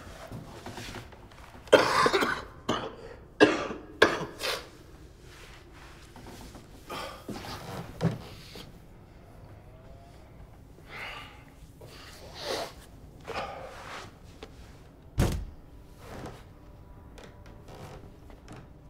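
A man coughing and gasping in ragged, irregular breaths, loudest in the first few seconds. There is a single dull thud about fifteen seconds in.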